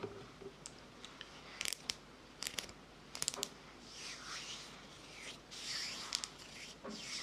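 Close-miked mouth sounds: clusters of quick wet tongue and lip clicks, then three soft breathy hisses.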